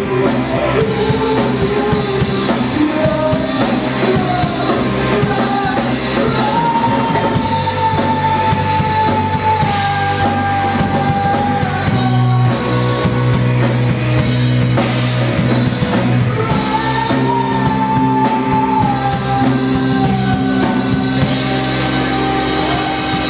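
Live rock band, with electric guitars, bass guitar and drum kit, playing a song at full volume. Two long held high notes, each several seconds long, slide slowly down in pitch over the band, one starting about six seconds in and one about sixteen seconds in.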